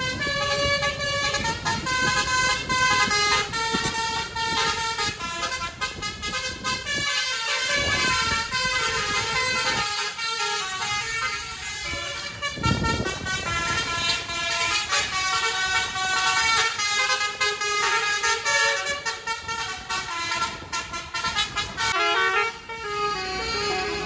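Bus 'telolet basuri' musical air horn playing a melody: a run of short held notes stepping up and down in pitch, one after another, with only a few short breaks.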